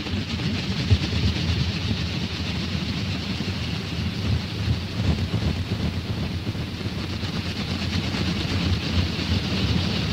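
Wind buffeting the camera's microphone: a steady rushing hiss over an uneven low rumble.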